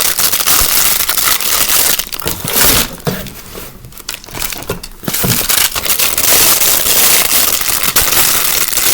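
Packaging crinkling and rustling as fidget toys are handled and unwrapped, with a quieter stretch in the middle.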